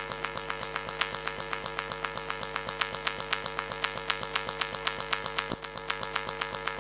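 Interference on a faulty church sound-system feed: a steady electrical hum with a rapid, even train of clicks, several a second.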